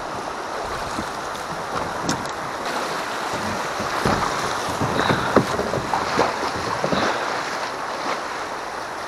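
Fast river current rushing through a rocky rapid around a kayak, with water splashing and slapping against the hull, busiest in the middle few seconds.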